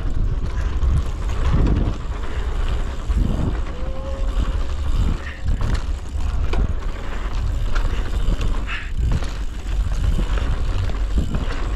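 Mountain bike riding down a dirt downhill trail: steady rush and rattle with scattered knocks, under a heavy low rumble of wind buffeting the microphone.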